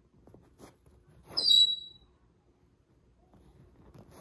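Cockatoo gnawing a wooden chew block with its beak: faint crunches and clicks. One short, high squeak about one and a half seconds in is the loudest sound.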